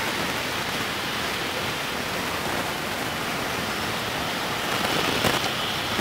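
Steady outdoor street ambience: an even, hiss-like noise of open-air traffic and air. It rises slightly near the end, with a single sharp knock about five seconds in.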